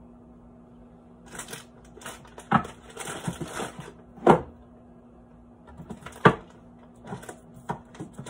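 Rummaging through a kitchen wall cabinet: items knocked and set down in a string of sharp clacks, three of them loud, with about a second of rustling packaging a few seconds in.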